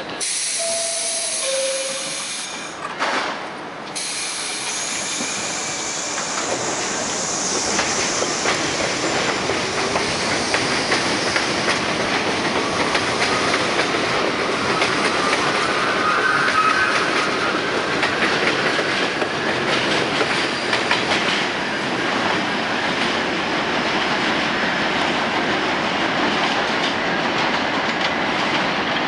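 R62A subway train on the 1 line: a two-note falling door chime, then the doors knocking shut about three seconds in. The train then pulls out and runs past, its wheels clattering over the rail joints, with a brief wheel squeal midway.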